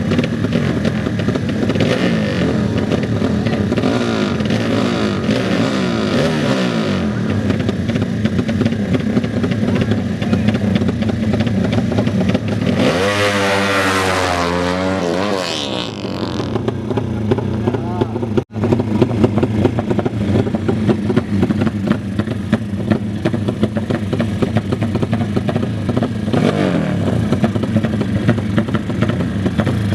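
Racing motorcycle engines running and revving hard. About halfway through, one engine sweeps up and back down in pitch, like a bike accelerating hard past. A brief cut in the sound comes a little after that.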